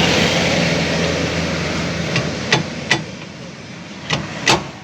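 Hammer blows on metal, five sharp strikes spread over the second half, while the new rear wheel bearing is being fitted. Under the first half a steady machine noise runs and fades out.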